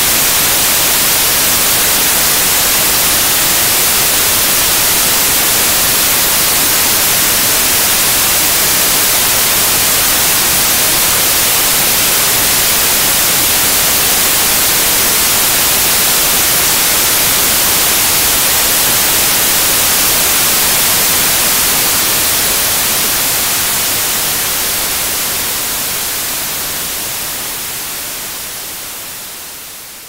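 Synthetic white noise: a steady, even hiss with no tones or rhythm, fading out over the last several seconds as the track ends.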